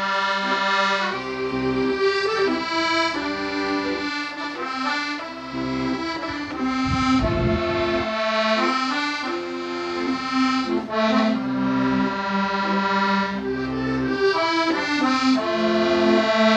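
Instrumental background music: a melody over sustained chords.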